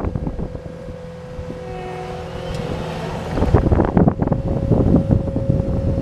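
Cat 259D compact track loader running under load, its engine and hydraulics giving a steady drone with a held whining tone as it lifts a full bucket of dirt and drives with it. The rumble grows louder and rougher about three and a half seconds in.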